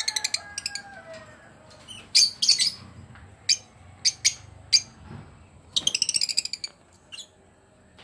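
Caged lovebirds chirping: quick runs of rapid, high-pitched chirps, a longer run near the middle and one more in the last third, with single chirps between.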